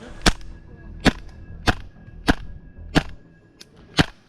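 Airsoft gun firing single shots: six sharp cracks at a steady pace, roughly one every two-thirds of a second.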